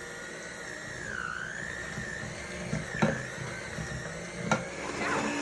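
Electric mixer running steadily, beating cream cheese, eggs, sugar and vanilla into cheesecake filling, its whine dipping briefly about a second in. A couple of sharp clicks come near the end.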